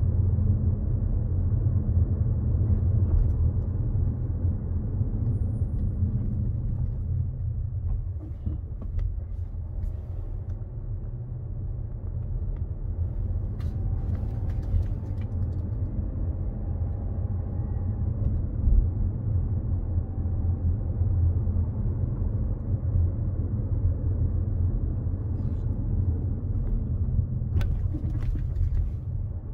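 A car driving along a paved road, heard from inside the cabin: a steady low rumble of engine and tyres.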